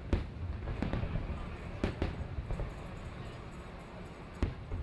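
Aerial fireworks shells bursting: about six sharp booms at irregular intervals, the strongest just after the start, near two seconds and near the end, with a low rumble between them.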